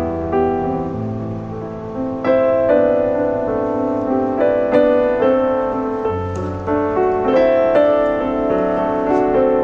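Background instrumental piano music, with notes struck every half second or so over a low bass line.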